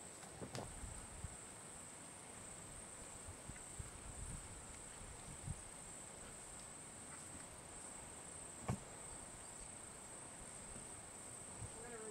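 Faint, steady high-pitched drone of insects, over a low rumble of wind on the microphone. A couple of faint clicks stand out, one about half a second in and another about nine seconds in.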